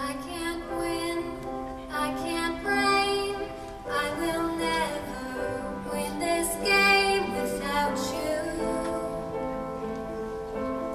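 Show choir singing slow, held, harmonised chords, with female voices to the fore and a new phrase entering about every two seconds.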